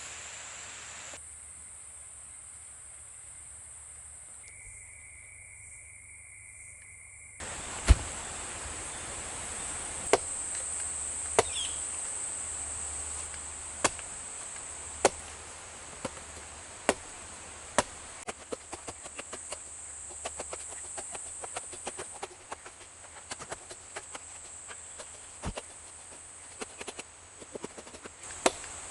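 A coconut being chopped open: a few heavy strikes a second or more apart, then quicker, lighter chops, starting about seven seconds in. A steady high-pitched insect drone runs underneath.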